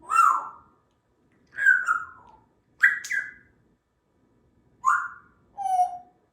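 Congo African grey parrot calling: about five short whistles and chirps with pauses between them, the last a clear whistle that falls in pitch.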